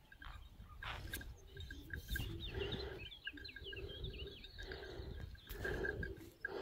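Swiss hounds baying repeatedly, short calls at an even pitch coming about once or twice a second. A songbird twitters briefly about two seconds in, over a low wind rumble.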